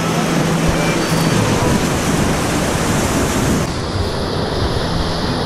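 Whitewater rapids rushing loudly around a kayak as it runs them; the sound shifts abruptly about two-thirds of the way through.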